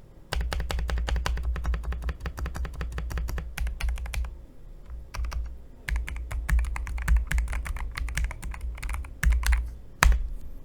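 Typing on a VN66 keyboard: fast runs of key clicks with a brief thinning in the middle, ending with one louder single keystroke.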